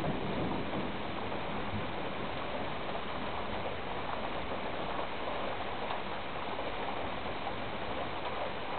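Rain falling steadily in a thunderstorm, an even hiss.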